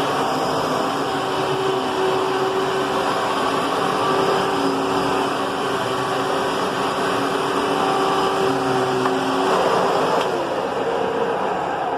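Hoover Twin Chamber bagless upright vacuum cleaner running, a steady motor whine over airflow noise; the main tone drops in pitch about ten seconds in.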